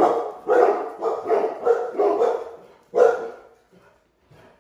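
Labrador retrievers barking in a rapid volley of loud, short barks, about eight in the first three seconds, then one more bark and a few faint sounds as the barking trails off.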